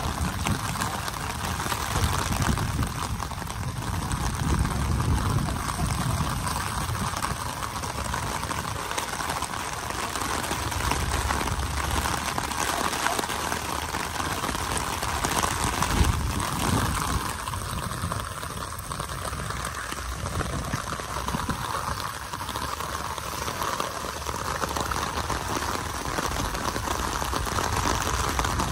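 Steady rain falling and pattering on an umbrella held overhead.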